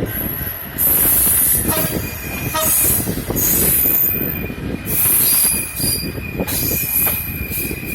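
Train running on rails: heavy rumble with the wheels squealing in repeated high-pitched bursts every second or two.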